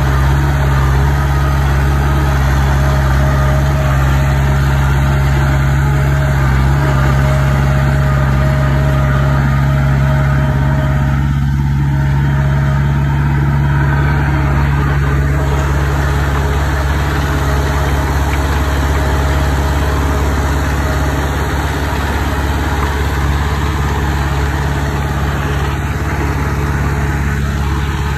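Diesel engine of heavy construction machinery running steadily at an even pitch.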